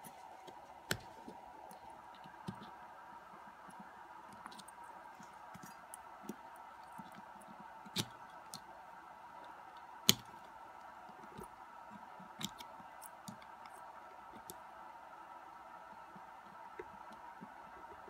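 Small metal lock parts clicking and ticking as fingers work at the retaining clip on a lock cylinder, trying to pry it off. The clicks are scattered and irregular, with the sharpest one about ten seconds in.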